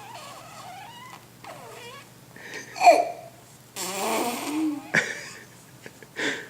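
Baby making silly vocal sounds: soft wavering coos, a short loud squeal about three seconds in, then a breathy, noisy vocal sound and a brief cry near the end.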